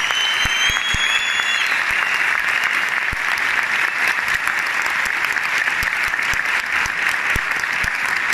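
Audience applauding steadily. Over the first second and a half a high held tone rises slightly, then cuts off.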